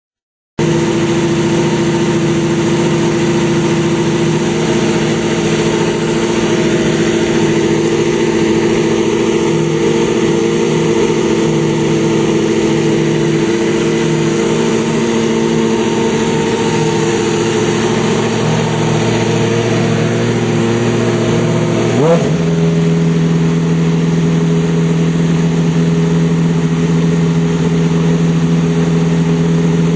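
Champ Car race engine, a Cosworth turbocharged V8, running steadily at idle. About two-thirds of the way through it gives one quick throttle blip, then settles to a steady note at a different pitch.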